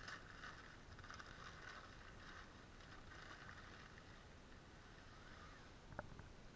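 Faint rustling and crinkling of crumpled newspaper wrapping being pulled off a plastic container, with a single sharp click near the end.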